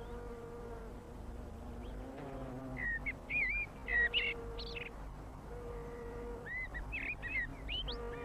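Small songbird chirping in quick, short up-and-down notes, in bunches about three seconds in and again near the end, with an on-and-off buzzing hum underneath.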